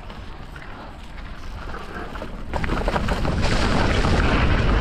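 Wind rushing over the microphone and tyres rolling on a dirt trail as a mountain bike runs down a steep descent, the noise jumping much louder about two and a half seconds in as speed builds, with a few sharp clicks and rattles.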